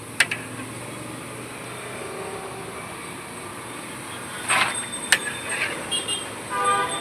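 Steady traffic noise from a busy street, broken by a sharp click at the start, a short scrape and another sharp click about four and a half and five seconds in, and a short pitched sound near the end.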